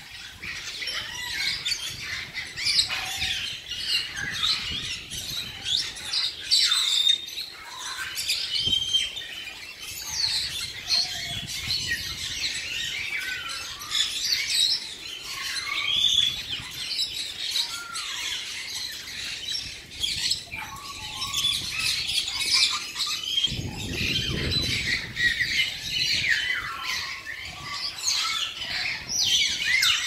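A flock of caged parrots and parakeets squawking and chirping without pause, many short, shrill calls overlapping.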